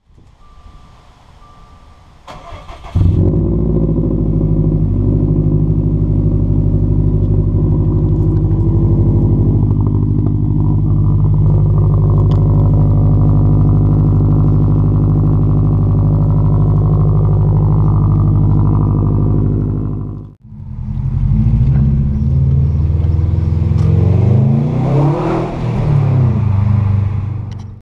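A Subaru WRX's turbocharged flat-four starts about three seconds in and idles steadily, heard at its quad-tip exhaust. After a sudden cut about twenty seconds in, the same car is heard from inside the cabin while driving, its engine pitch rising and falling as it accelerates.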